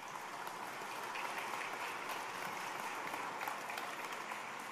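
Audience applauding at the end of a talk, a dense, steady clapping that begins to die away near the end.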